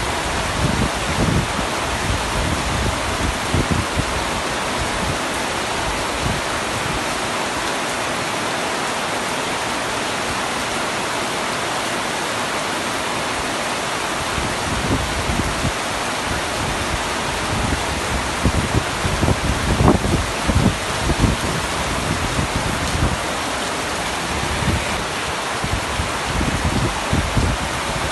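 Heavy rain falling on a tent roof as a steady, dense hiss. Irregular low rumbles come and go, most of them around twenty seconds in.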